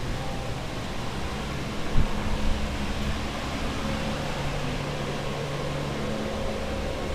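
Flood-drying equipment running: snail-shell carpet air movers and a dehumidifier blowing steadily with a low hum. A single knock about two seconds in.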